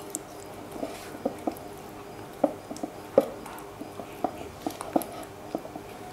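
Red silicone spatula stirring thick mayonnaise sauce in a glass bowl: irregular soft clicks and taps of the spatula against the glass, over a faint steady hum.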